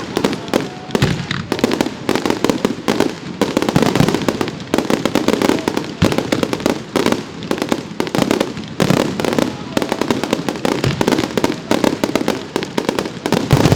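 Professional fireworks display going off in a dense, unbroken barrage of shell bursts and crackling, many bangs a second with no pause.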